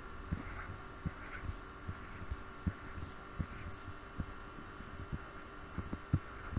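Steady electrical hum under irregular soft, low thumps, roughly two or three a second, from drawing strokes made at the desk.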